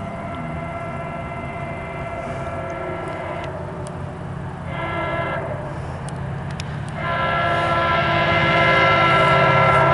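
Horn of a MARC commuter train's diesel locomotive sounding as the train approaches: a long blast ends about three and a half seconds in, a short blast follows near the middle, and a louder long blast begins about seven seconds in. Under the horn, the approaching train makes a steady low rumble.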